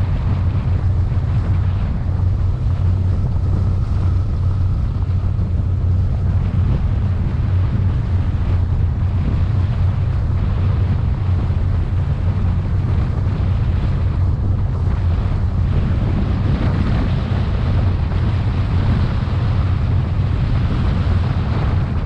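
Fountain 47 powerboat's triple 1350 hp engines running steadily, a low even drone, with wind buffeting the microphone and water noise from the hull.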